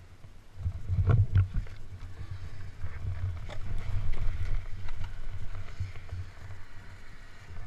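Snowmobile engine running with a steady low rumble, broken by sharp knocks and thumps around a second in and again a few seconds later as the sled tips over into deep snow.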